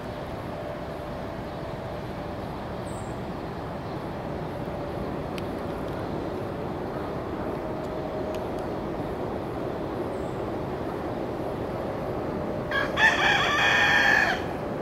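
A rooster crowing once, near the end, a single call of about a second and a half, over a steady low background rumble.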